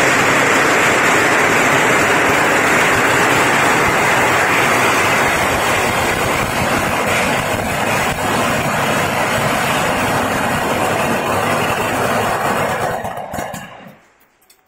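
A long string of Chinese firecrackers going off in a rapid, unbroken crackle of bangs, thinning near the end and stopping with a few last pops.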